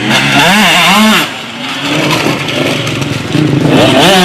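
KTM 125 two-stroke motocross bike engine revving up and down in quick blips as the rider works the throttle. It eases off briefly about a second in, then picks up again toward the end.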